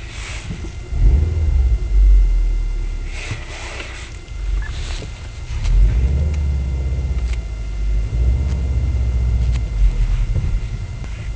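2011 Subaru WRX STI's turbocharged 2.5-litre flat-four engine running while it warms up: a low rumble that swells and eases several times.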